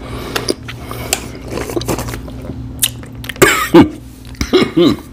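A man burps twice, loudly, about three and a half and four and a half seconds in, each burp sliding down in pitch. Faint mouth clicks come before them.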